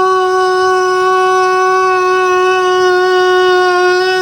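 A man's drawn-out "wazzup" yell in the style of the Budweiser "Whassup" advert, held loud on one high pitch like a horn.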